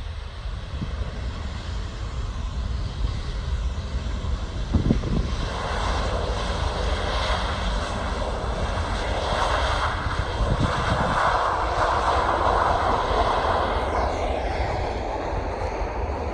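Airliner's engines passing by: a broad engine roar builds from about five seconds in, is loudest around the middle, then eases with a falling whine near the end, over a steady low rumble.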